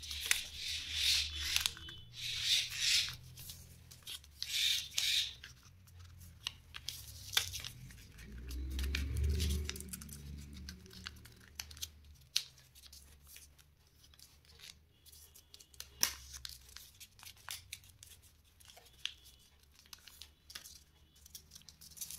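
A square of paper being folded and creased by hand into a paper fortune teller: rustling paper and sharp creasing snaps, busiest in the first few seconds, with a low rumble about nine seconds in.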